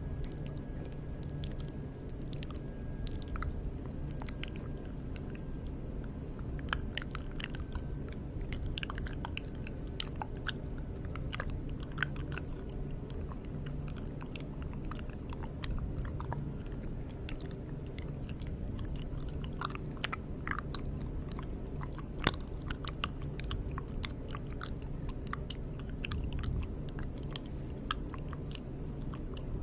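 Close-miked ASMR mouth sounds: a dense, irregular run of small wet clicks and smacks.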